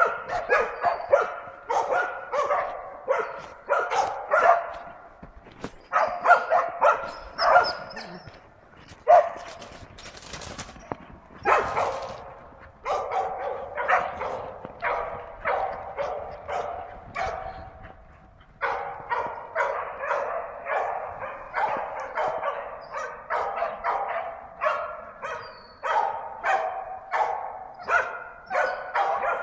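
Hunting dogs barking at wild boar, baying them. The barks come in rapid, steady runs of several a second, with a short lull about 18 seconds in.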